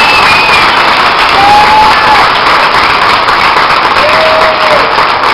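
Ballpark crowd applauding, a dense steady clapping, with a few long drawn-out cheers carrying over it.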